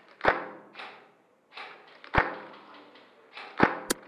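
Airsoft guns firing irregular single shots, sharp cracks that each carry a short echo off concrete walls.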